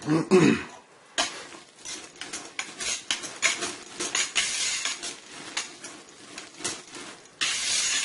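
Wire whisk clinking and scraping against the sides of a large metal pot in irregular strokes as thick hot-process soap batter is stirred by hand.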